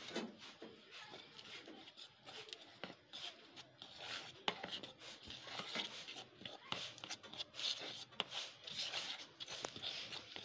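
A spoon stirring dry gram flour with chopped herbs and spices in a bowl: faint scraping and rustling, with a few light clicks of the spoon against the bowl.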